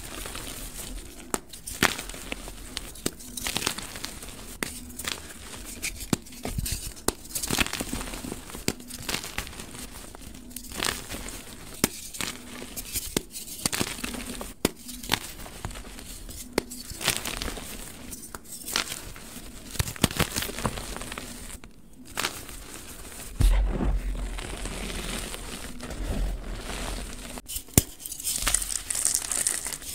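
Bare hands crushing and crumbling blocks of dyed gym chalk: a continuous run of crunching, crackling and snapping as the chalk breaks into pieces and powder. Just after a short lull about three quarters of the way through comes a single low thud.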